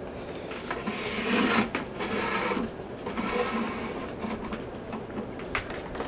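Plastic base of a table fan scraping and rubbing on a wooden tabletop as the fan is turned around by hand, in a few swells during the first half, followed by a couple of light clicks near the end.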